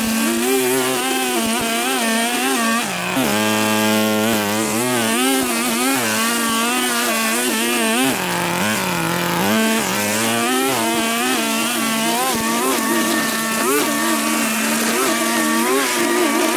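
Small petrol engine of lawn-care equipment running continuously at working speed, its pitch wavering up and down as the load changes while cutting long grass.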